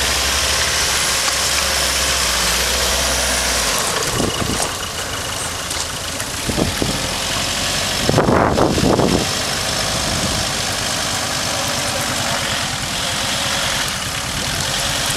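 Hyundai Terracan SUV's engine running at low revs as the vehicle crawls down a steep sandy slope, with a brief louder burst about eight seconds in.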